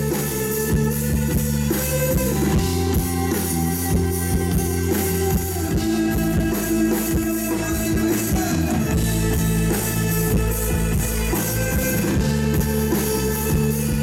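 Live rock band playing an instrumental passage without vocals: electric guitars and bass over a steady drum-kit beat, with a violin in the line-up.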